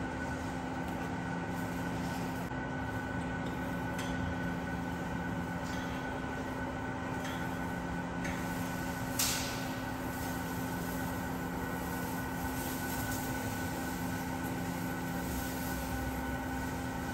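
Steady mechanical hum with a few constant tones, and one sharp click about nine seconds in.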